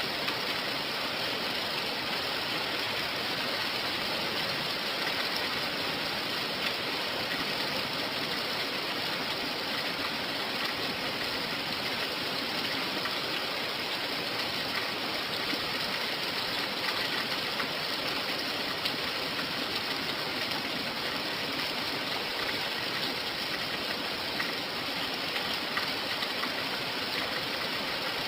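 Steady rain falling, an even hiss of water with a few faint drop ticks.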